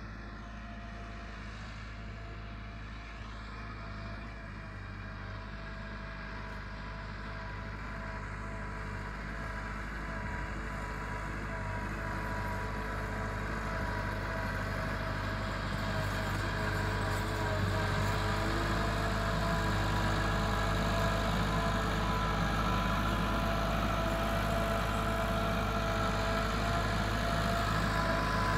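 Massey Ferguson 385 tractor's four-cylinder diesel engine running steadily under load while it pulls a laser land leveler. It grows steadily louder as it approaches.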